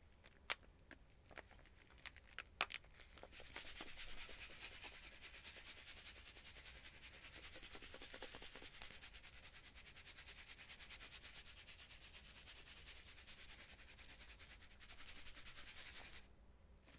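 Hands in nitrile gloves rubbing fast and evenly for about thirteen seconds, starting about three seconds in and stopping suddenly near the end. A few sharp ticks come before it.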